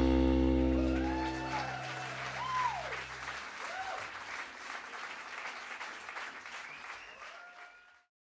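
The song's final chord rings out and fades over the first few seconds while the audience applauds and cheers. The applause carries on, then cuts off abruptly near the end.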